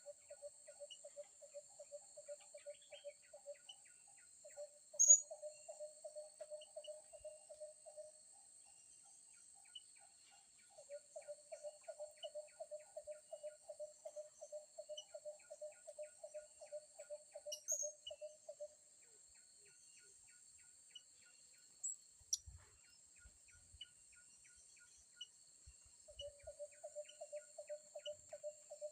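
Outdoor rural ambience: a low, rapid pulsing trill of about five pulses a second comes and goes in stretches of several seconds, over a steady high insect-like drone. A few sharp, brief high chirps break in; the loudest comes about five seconds in.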